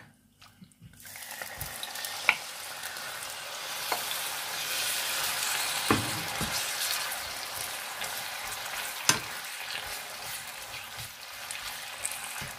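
Marinated chicken leg pieces sizzling in hot vegetable oil in a pan. The frying starts suddenly about a second in as the meat goes into the oil, and a few sharp knocks come through the sizzle.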